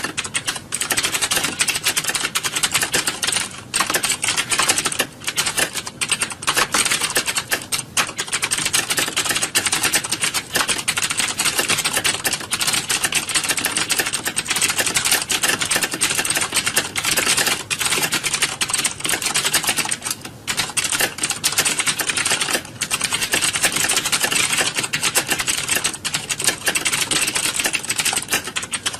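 Many computer keyboards being typed on at once: a dense, continuous clatter of keystrokes with hardly a break, as in a typing-test exam hall.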